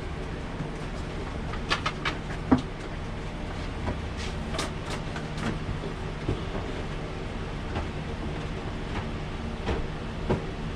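A steady low mechanical hum runs throughout, with scattered light clicks and knocks over it, a cluster of them around the middle.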